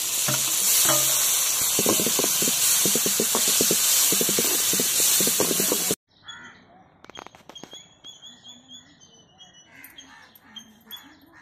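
Tomatoes sizzling loudly in hot oil in an aluminium pot with fried onions and green chillies, with rapid scraping clicks of stirring. The sizzle cuts off abruptly about six seconds in, leaving quiet bird calls.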